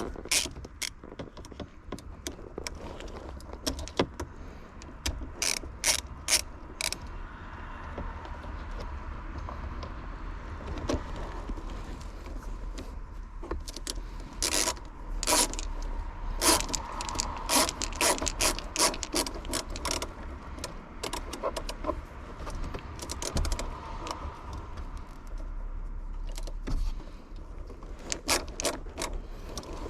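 Irregular sharp clicks and clatter of hand tools and parts being worked, at times a quick ratchet-like clicking.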